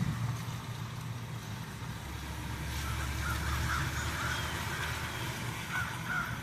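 Steady low rumble of a car running, growing a little fuller about two seconds in.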